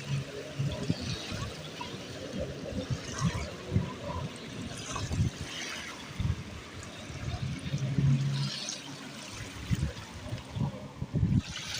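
Water trickling and running, with irregular low thumps on the microphone.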